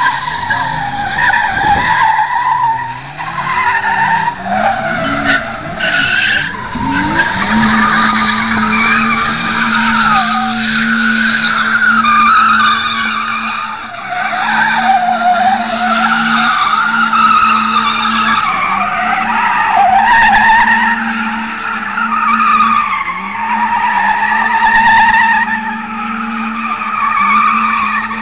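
BMW E30 doing a burnout, its rear tyres squealing continuously with a wavering pitch. The engine revs up and down for the first several seconds, then is held at steady revs for the rest.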